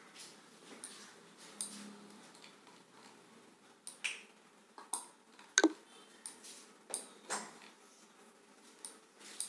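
Computer mouse clicking: a dozen or so short, sharp clicks at irregular intervals over faint hiss, as a picture is dragged and resized on screen.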